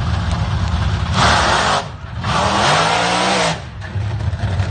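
Drag-racing cars launching off the starting line at full throttle: two loud blasts of exhaust noise, the second with the engine note rising, over a low rumble of idling engines.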